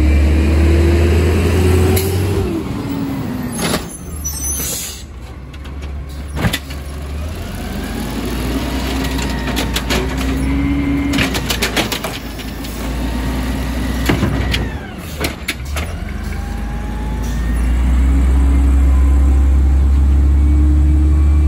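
Automated side-loader garbage truck emptying a curbside cart: the diesel engine revs as the hydraulic arm works, with several bursts of knocks and clatter from the cart and trash being dumped. Near the end the engine runs loud and steady as the truck pulls away.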